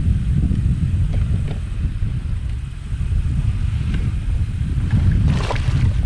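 Wind buffeting the microphone as a steady low rumble. About five seconds in, a short splash as a hooked bass thrashes at the surface beside the boat.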